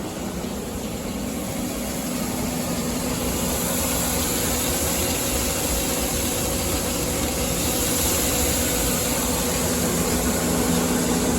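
Grain dryer and nearby farm machinery running at work on wet corn: a steady mechanical drone with an engine-like hum, growing a little louder over the first few seconds.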